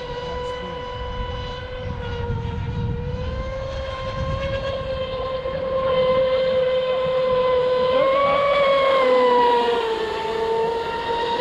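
Brushless electric motor of an RC speed boat whining steadily at a high pitch. The pitch rises briefly about eight seconds in, then dips and settles, over a low rush of water and wind.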